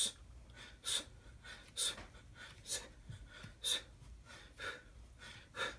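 A man's sharp, forceful breaths, one with each rep of a fast set of bar dips, coming about once a second, seven times.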